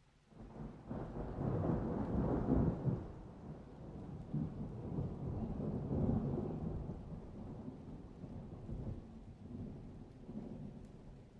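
Rolling thunder: a low rumble that swells within the first couple of seconds, then slowly dies away.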